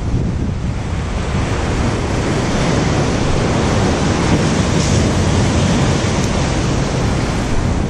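Surf breaking and churning against the jetty below, a loud, steady rush, with wind buffeting the microphone.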